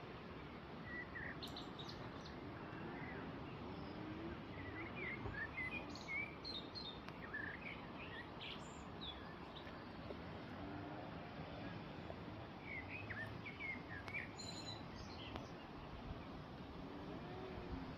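Small birds chirping in short scattered bursts over a steady background hiss, with the chirps busiest in two spells, near the middle and again later on.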